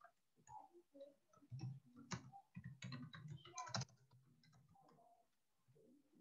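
Faint typing on a computer keyboard: a quick, uneven run of key clicks that stops about four seconds in.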